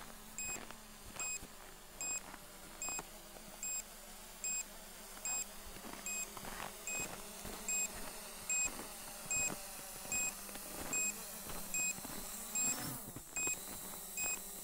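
Low-battery warning of an SJRC F11s 4K Pro drone's controller and app: short high electronic beeps repeating steadily, a little faster than once a second. The battery is running low on the drone as it descends to land.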